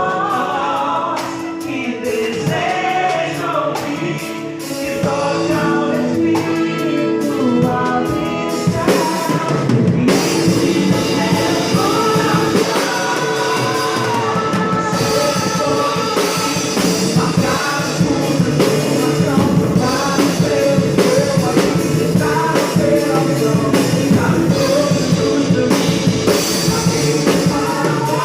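A band playing with singers, the drum kit built around a Mapex Maple 14x8 snare. The full band and drums come in about ten seconds in and play on with the singing.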